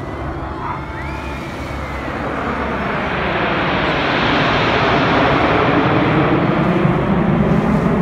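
A formation of jet aircraft flying overhead: the jet roar swells over the first few seconds and stays loud, deepening in pitch near the end as they pass.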